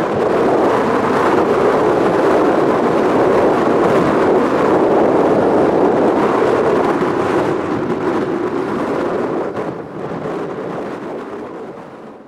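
Strong wind rushing across open flat farmland, a loud steady roar that eases off near the end.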